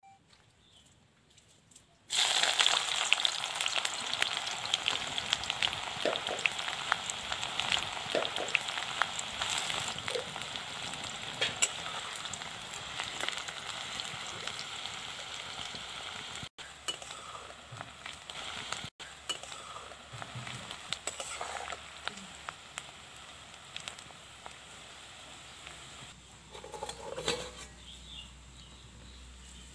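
Sliced onions dropped into hot oil in a kadhai: a sudden loud sizzle and crackle starts about two seconds in and slowly dies down as the onions are stirred with a spatula.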